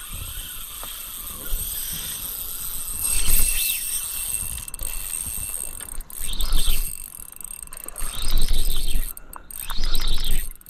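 Spinning reel's drag clicking out line in several bursts as a hooked bass runs hard against 6 lb line.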